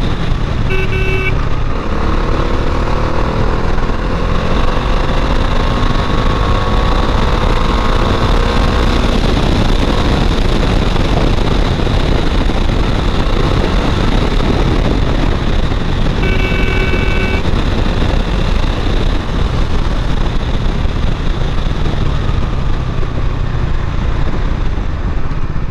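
Bajaj Dominar 400's stock single-cylinder engine running while riding, under heavy wind rush, its pitch rising slowly as it accelerates between about two and nine seconds in. A horn beeps briefly twice, near the start and about sixteen seconds in.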